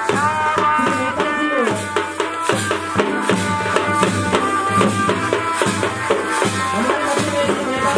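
Live folk music: a dhol drum beating a quick, steady rhythm with rattling percussion, under a high melody line that slides between held notes.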